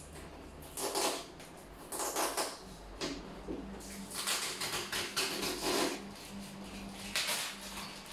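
Plastic shrink-wrap on a cardboard appliance box crinkling and rustling in repeated bursts as it is cut with scissors and pulled loose, with a longer stretch of crinkling in the middle.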